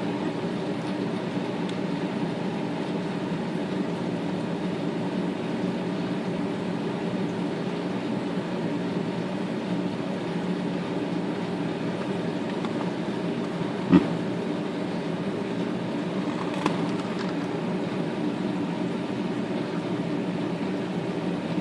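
A steady low hum, with a sharp click about fourteen seconds in and a fainter click a few seconds later as small parts of a Smith Corona electric typewriter's carriage-return gearing are worked into place by hand.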